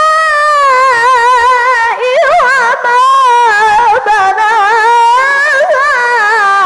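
A boy qari chanting the Qur'an in melodic tajweed style through a microphone, drawing out one long ornamented phrase with rapid wavering turns and a few brief breaks for breath.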